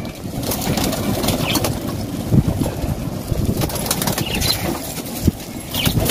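White pigeons flapping their wings and scrambling about in a loft as they are chased to be caught, with scuffling and a few knocks on the loft floor.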